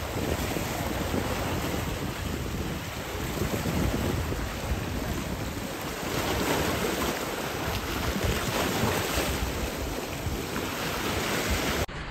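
Sea water washing and splashing over lava rocks, with wind buffeting the microphone.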